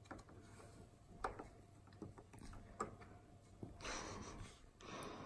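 Quiet handling of a plastic slime-making kit: a few faint scattered clicks and taps of plastic, with a soft rustle about four seconds in.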